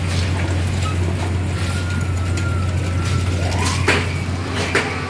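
Steady low hum of a running carnival ride and its machinery, with two sharp knocks near the end.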